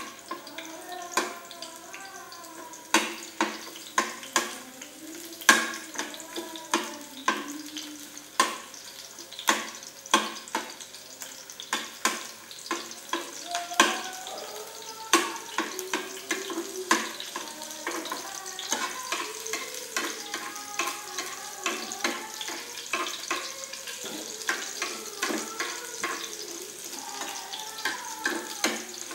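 Shallots and garlic sizzling in hot oil in a small wok while a metal spatula stirs them, knocking and scraping against the pan about once or twice a second. The knocks are sharpest in the first half and lighter later. The sizzle is the stage of sautéing the aromatics until wilted.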